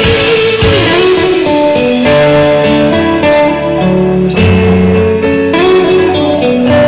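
Loud guitar-led music playing over the hall's speakers: an instrumental passage with no singing.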